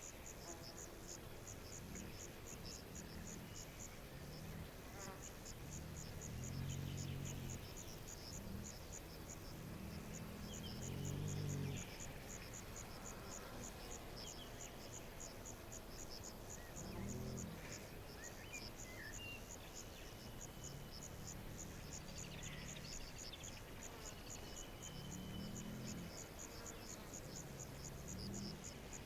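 A cricket chirping steadily in rapid, evenly spaced pulses that pause briefly about a third of the way in. Faint bird chirps come in now and then, and a low droning tone rises and fades several times.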